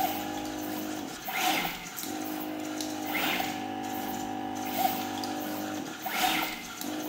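Pick-and-place machine running: a steady motor hum at several pitches that stops twice for about a second, with a short hiss roughly every one and a half seconds.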